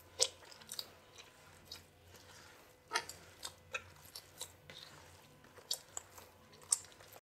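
Hands kneading soft, sticky, oil-slicked bread dough in a plastic bowl: quiet, irregular wet squelches and slaps, the sharpest about a quarter second in, near three seconds, and near the end. The dough is still sticky as the oil is worked in.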